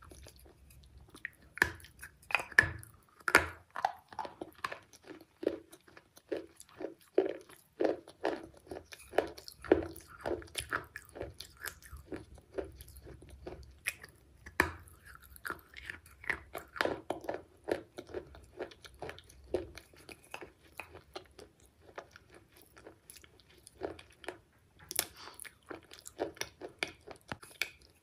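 Close-up chewing and crunching of a piece of chocolate bar: runs of crisp crunchy chews, a lull about two-thirds of the way through, then more crunching near the end.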